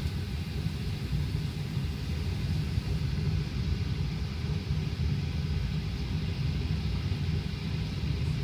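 Steady low rumble inside the cabin of a Boeing 737-800 waiting on the ground for departure clearance, with no distinct events.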